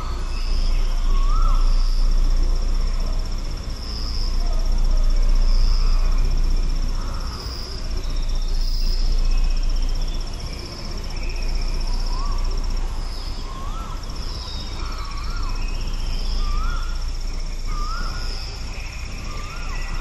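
Wind on the microphone, rising and falling in slow gusts, with a bird repeating a short call every second or two over a steady high insect trill.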